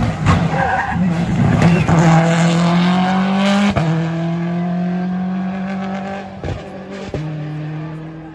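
Rally car engine accelerating hard, its note climbing and then dropping abruptly at a gear change about four seconds in, with two more quick breaks near the end as it pulls away and fades.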